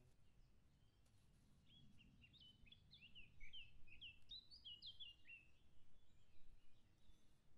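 A small songbird singing one faint phrase of about a dozen quick chirps that slide in pitch, starting about two seconds in and lasting about three and a half seconds, over a low rumble of background noise.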